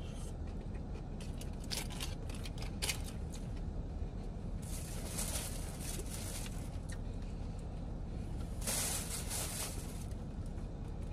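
Close-up chewing of a bite of tamale with a few wet mouth clicks, then rustling of aluminium foil and a cardboard takeout box, twice, as food is picked out of it.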